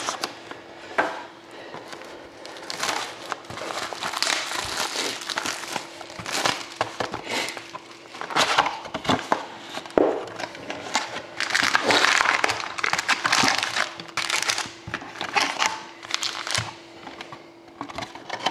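Plastic shrink wrap crinkling in irregular bursts as it is slit with a knife and torn off a sealed box of hockey cards, with rustling and scraping of the cardboard box as it is opened and the packs are lifted out. A faint steady hum runs underneath.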